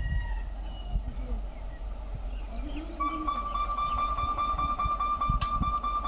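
Voices and street noise, then about halfway through a steady, high-pitched electronic warning tone starts with a fast flutter and keeps sounding.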